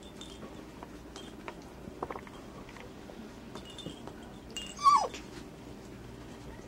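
Eight-week-old Doberman puppies wrestling over a chew toy, with faint scuffling and ticks; about five seconds in, one puppy gives a single short yelp that falls in pitch.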